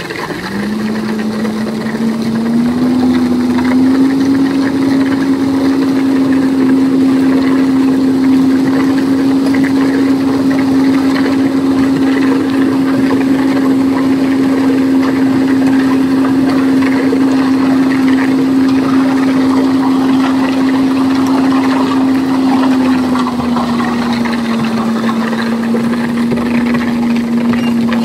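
Diesel engine of an Ajax Argo 2000 self-loading concrete mixer running at steady raised revs while the drum turns to discharge concrete down the chute. The engine note climbs in two small steps in the first few seconds, holds steady, and settles a little lower near the end.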